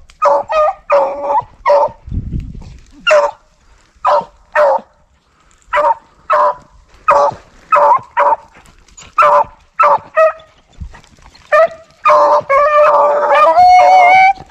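Rabbit dogs barking in short pitched yelps that come in uneven bursts, running together into longer overlapping baying near the end. This is the pack giving tongue on a rabbit's track.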